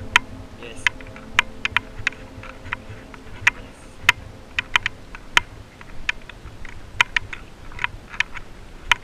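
Irregular sharp clicks and taps, two or three a second, over a faint background.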